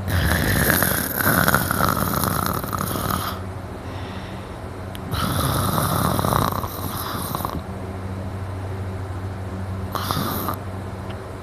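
A man snoring loudly in deep sleep: two long snores of about three and two seconds a couple of seconds apart, then a short one near the end.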